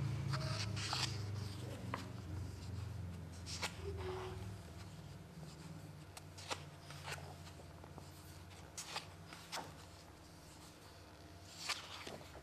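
Pages of a large art book being turned by hand: a series of short paper rustles and flaps, about a dozen, the loudest near the end. A low hum fades away during the first half.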